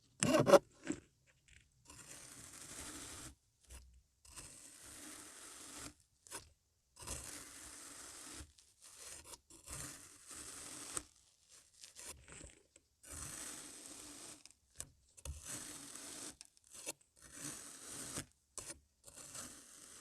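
Crunchy kinetic sand being cut: a sharp crunch right at the start, then a series of slow, gritty scraping strokes, each lasting a second or so, as a blade is drawn through the packed sand.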